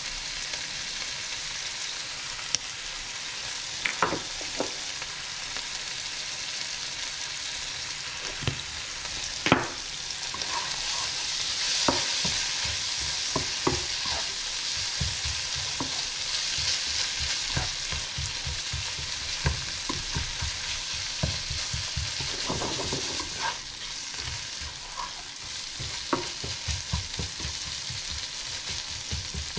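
Beef with onions sizzling steadily in a frying pan, loudest around the middle, while a spatula stirs and scrapes through it. Scattered sharp clicks come from the spatula striking the pan.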